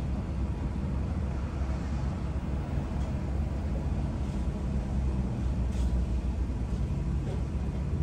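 Car engine idling with a steady low rumble, heard from inside the cabin.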